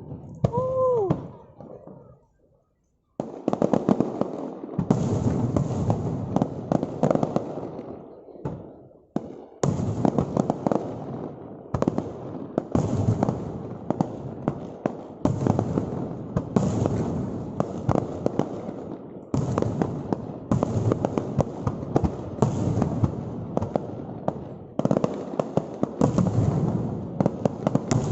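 Aerial fireworks display: a falling whistle in the first second, then dense volleys of bangs and crackling that start and stop abruptly.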